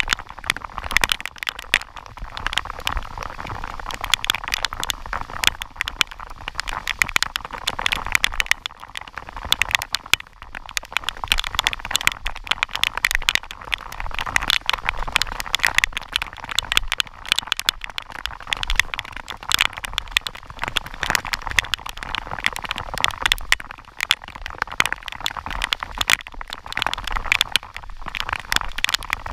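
Heavy tropical rain falling on the river, heard as a dense, irregular run of sharp clicks from drops striking close to the microphone over a steady hiss.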